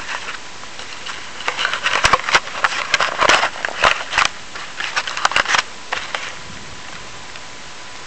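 Handling noise from a small camera being adjusted by hand: a run of scrapes, rubs and clicks close to its microphone for a few seconds, over a steady hiss.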